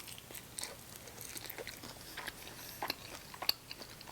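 A person chewing and biting chicken wings close to the microphone: irregular small clicks and mouth smacks.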